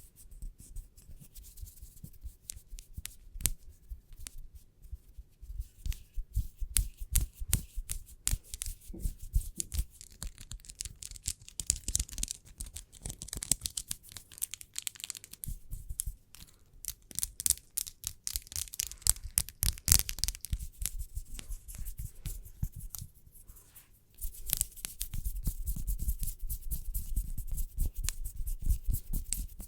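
Close-miked fingernail tapping and hands rubbing together: rapid, irregular dry clicks, turning into a denser, steadier rustle for the last few seconds.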